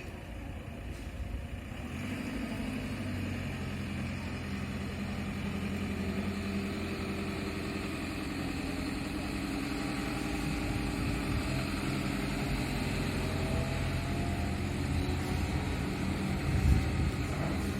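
Diesel engine of heavy construction machinery running steadily, with a faint rising whine in the middle and a short knock near the end.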